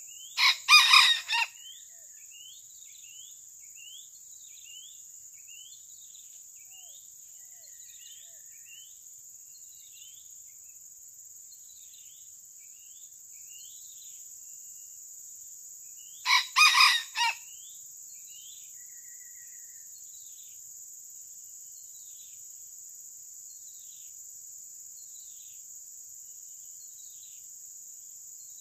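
Red junglefowl rooster crowing twice, each a short crow of about a second, roughly fifteen seconds apart. Under it runs a steady high-pitched insect drone with faint chirps repeating about once a second.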